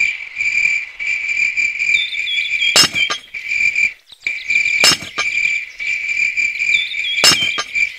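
An insect's steady high trill, broken by a few brief gaps, with sharp clicks about every two seconds.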